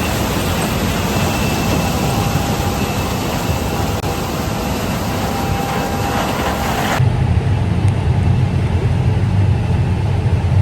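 Heavy harvest machinery running steadily at working speed, with faint steady whining tones over the engine noise. About seven seconds in the sound changes abruptly to a duller, heavier low engine hum.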